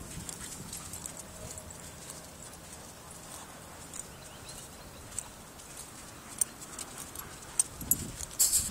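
Footsteps on firm, rippled wet sand: a run of soft, irregular clicks over a faint steady hiss, with a louder rustle and knocks near the end.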